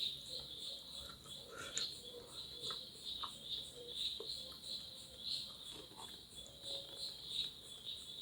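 An insect chirping steadily in a high, even pulse about twice a second, with faint scattered clicks and taps of eating.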